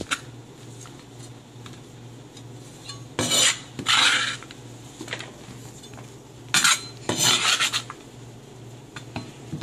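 Kitchen utensils scraping and clattering against dishes in about four short bursts around the middle, over a steady low hum.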